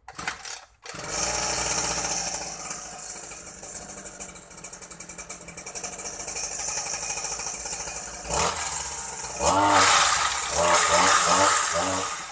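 Small two-stroke weed-eater (grass-cutter) engine on a friction-drive bicycle, pull-started and catching about a second in. It runs with a fast, even putter, then is revved up several times near the end, rising in pitch with each rev.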